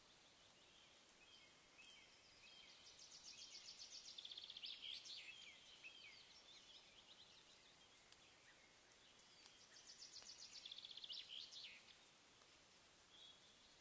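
A songbird singing faintly: two song phrases several seconds apart, each a fast run of repeated notes ending in a short flourish, over a faint steady hiss.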